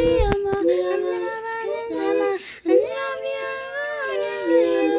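A child singing a melody of the song, with backing music.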